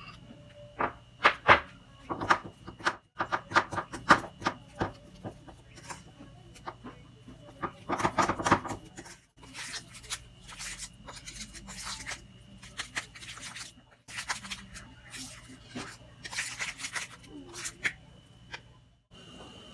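A spoon stirring and mashing thick, wet Oreo cookie batter in a ceramic bowl: repeated clinks and scrapes of the spoon against the bowl, with some squelching of the batter.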